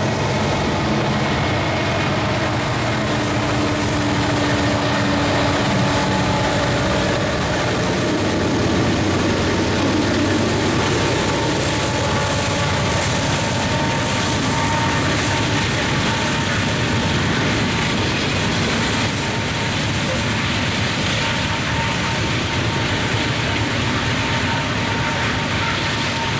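Heavy loaded coal train passing: six-axle diesel locomotives go by under load in the first part, their engine tone fading after about eight seconds. A long string of loaded steel coal hoppers follows, rolling past with steady wheel-on-rail noise.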